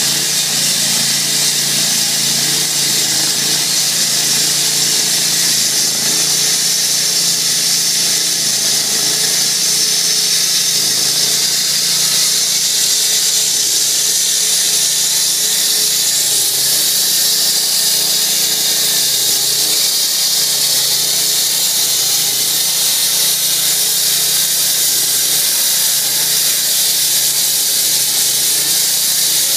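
Multiquip SP2 20 hp self-propelled concrete saw running steadily while its 356 mm diamond green-concrete blade cuts a 60 mm deep joint in two-day-old concrete. Its engine drones evenly under a loud, high hiss from the blade in the slab.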